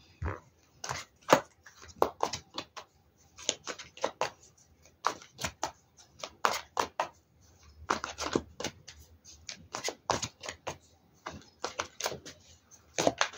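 A tarot deck being shuffled and handled by hand: a long run of irregular papery snaps and flicks of the cards, with denser clusters about eight seconds in and near the end.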